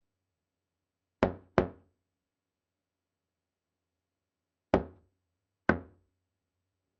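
Knocking on a door: two quick knocks about a second in, then two more knocks spaced about a second apart a few seconds later.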